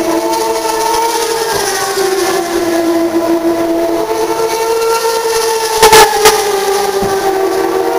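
Turismo Carretera race cars' engines running at high revs on the circuit, a steady howl whose pitch sags and climbs as cars pass and overlap. A couple of sharp, loud knocks about six seconds in.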